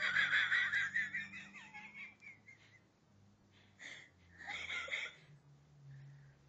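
A person laughing in high, wavering giggles for the first couple of seconds, then two shorter bursts of laughter around four and five seconds in.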